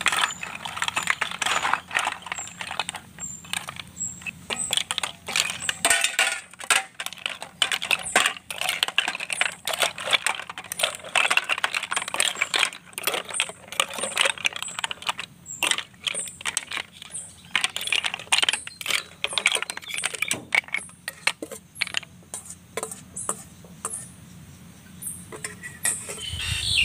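Snail shells clattering against a stainless steel bowl, a metal spoon and an enamel plate as cooked snails are scooped and tipped out: a dense, irregular run of clicks and clinks.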